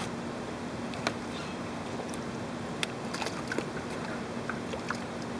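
Spade digging into soil: a few scattered short scrapes and clicks as the blade cuts in, over a steady low hum and hiss.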